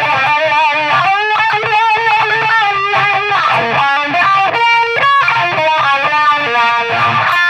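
Electric guitar played through a Cry Baby wah pedal: single-note lead lines with bends and vibrato, the wah changing the tone as it is rocked.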